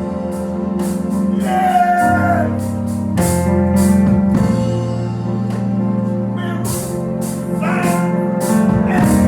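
Gospel church music: an organ holds chords that change every few seconds, with drum and cymbal hits keeping time. A voice wails briefly, twice.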